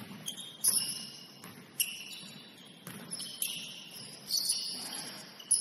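Basketball shoes squeaking on a hardwood court in many short, high chirps, with a ball bouncing sharply about once a second.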